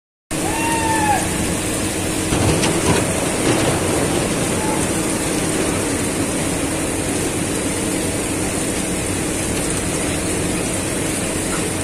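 Heavy rain pouring down steadily, with a tractor's diesel engine running underneath as a low steady hum.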